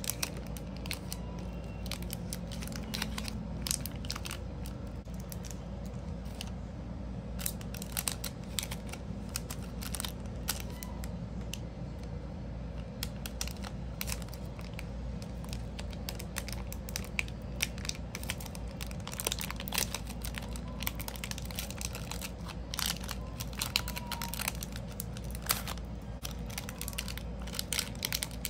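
Clear plastic bag crinkling and crackling in irregular bursts as handmade soap bars are slipped into it and the bag is folded closed. A steady low hum sits underneath.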